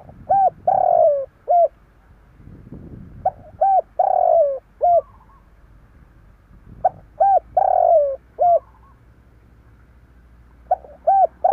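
Spotted dove singing: a phrase of short coos around one longer, falling coo, repeated four times about three and a half seconds apart.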